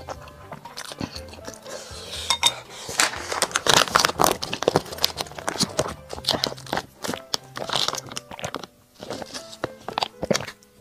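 Close-miked eating sounds: chewing and crunching as a person gnaws a spicy braised pig trotter, dense and loudest in the middle. Background music plays under it.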